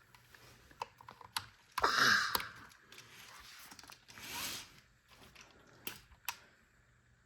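Scattered plastic clicks and rattles of hands plugging cables into a VEX V5 robot brain and handling the robot, with two short hissing swells about two and four seconds in.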